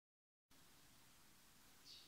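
Near silence: a faint steady hiss, with one brief faint high tick near the end.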